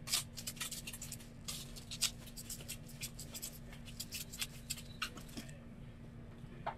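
Hands handling and sorting small plastic ink bottles: a quick run of light clicks, taps and scratches that thins out about five and a half seconds in. A faint steady hum sits underneath.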